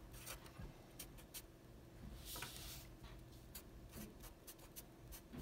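Sharpie marker writing on paper: a run of faint ticks and short strokes, with one longer scratchy stroke a little past two seconds in.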